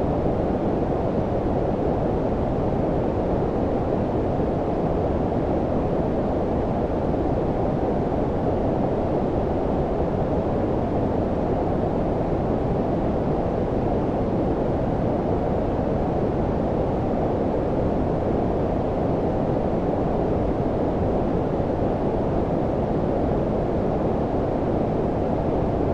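Steady, unchanging low-pitched brown-style noise: a deep, even hiss-rumble with most of its energy below about 1 kHz and little treble.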